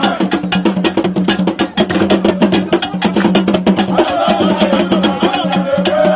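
Music with fast, evenly repeating percussion clicks over a steady low note, and a wavering melodic line, likely a voice, that comes in more strongly about four seconds in.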